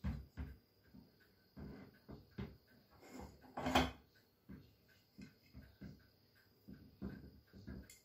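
Irregular knocks, taps and rattles of the metal parts of a 1923 GE Premier Junior vacuum cleaner being handled and fitted together on a wooden table, with one longer, louder scrape a little before the middle.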